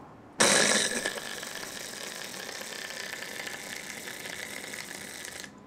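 A small handheld device whirring steadily, like a little motor or ratchet mechanism. It starts abruptly with a louder burst about half a second in and cuts off suddenly after about five seconds.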